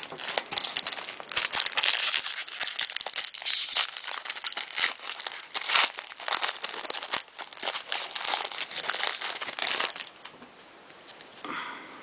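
Plastic foil wrapper of a baseball card pack crinkling and tearing as it is opened by hand, a dense irregular crackle that stops about ten seconds in.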